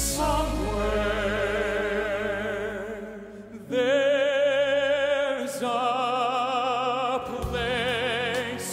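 Operatic tenors singing long held notes with wide vibrato. The sound dips about three and a half seconds in, and a louder new phrase begins just after.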